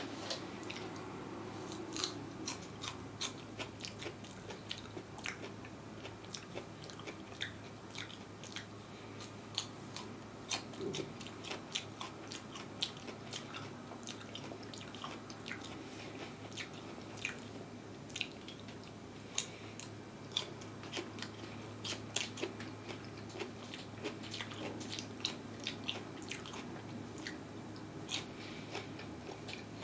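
Close-miked mouth sounds of someone biting and chewing crunchy food: many sharp, irregular crunches mixed with chewing.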